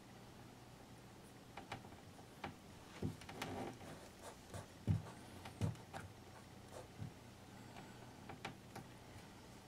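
Faint handling sounds of tape being pressed and rubbed down by a thumb across the glued break of a porcelain platter: scattered light taps and a short rustle, with a few soft knocks as the platter is handled.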